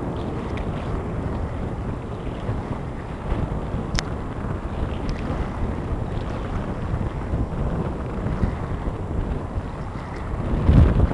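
Wind buffeting the microphone, a steady low rumbling noise with no engine tone, growing stronger in gusts near the end. A single sharp click about four seconds in.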